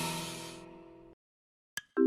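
Cartoon background music with held chords fading out over about a second, then a brief silence and a single short click near the end.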